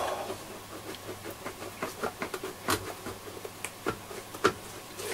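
Irregular small clicks and knocks as the screwless top cover panel of a Trio R1000 receiver is worked loose from the case by hand, the sharpest few between about two and a half and four and a half seconds in.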